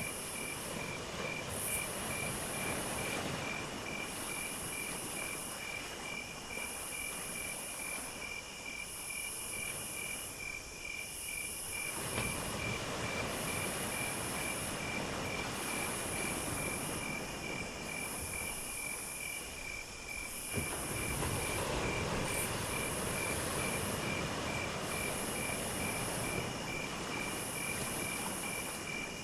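Insects calling: a cricket's steady rapid chirping together with a higher insect buzz that comes in regular phrases about every two seconds. Under them is a low rumbling background that changes abruptly twice.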